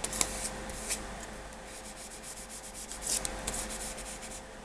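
Flat filling knife scraping and rubbing over a sheet of acetate laid on a Bondo-filled silicone mould, smoothing it down to press out air bubbles, with a few light ticks.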